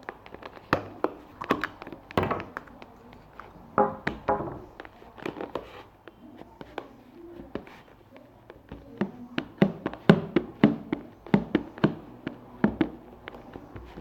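Fluffy slime being squished and stretched by hand, giving a string of irregular wet clicks and pops from trapped air bubbles, thickest in the second half.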